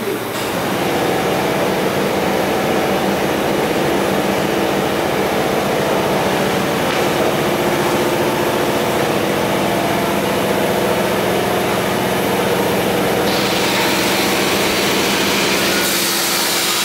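Industrial water chiller (LX-8030N) running steadily: its compressors and condenser fan make a continuous mechanical hum, which gets louder just after the start. About 13 seconds in, a louder high hiss joins the hum.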